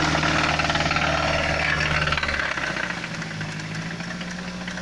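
Mazda CX-7 engine running with a rapid, rhythmic knocking tick over its steady hum: the engine knock the owner is showing. A little over two seconds in the low hum drops and the engine gets slightly quieter.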